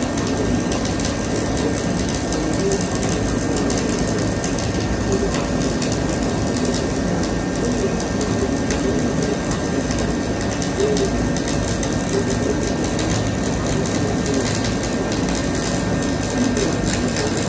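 Dual shield (gas-shielded flux-cored) welding arc burning steadily as a build-up bead is run, a continuous fine crackle that never breaks.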